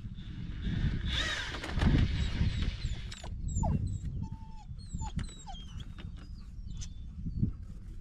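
A puppy whimpering in short, high gliding whines, over a steady low wind rumble on the microphone. About a second in, a cordless drill briefly whirs as it spins a reel winding in electric fence wire.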